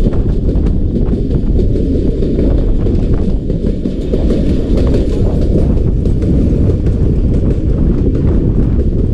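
Passenger train coaches running on the line: a steady, loud low rumble of wheels on rail with many sharp clicks and knocks of the running gear and rail joints.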